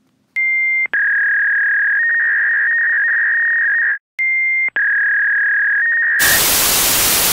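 Dial-up modem handshake sound effect: loud, steady high beeping tones with two short breaks, then a burst of hiss about six seconds in that cuts off sharply.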